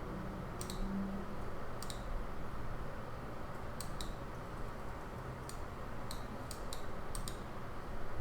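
About ten irregular clicks of a computer mouse, some in quick pairs, over a steady background hiss of white noise.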